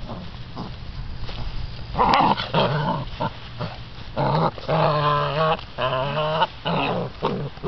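Six-week-old American Bandog Mastiff puppies growling as they fight and tug over a piece of chicken on a string, with drawn-out pitched cries about halfway through.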